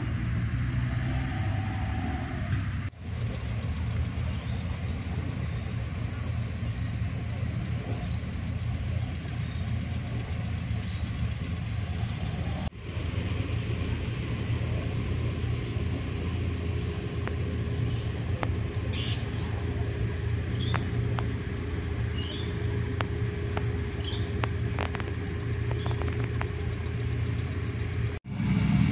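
Steady low rumble of car engines on the road, with a few short high chirps over it in the second half.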